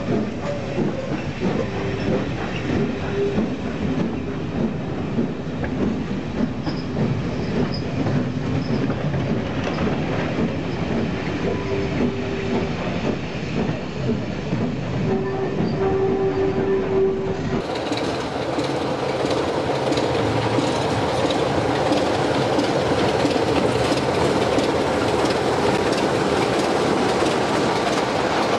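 Recorded sound of a British train running on rails, wheels clicking over rail joints, with a few short squealing tones. About two-thirds of the way through it cuts abruptly to a different, fuller recording of a train running.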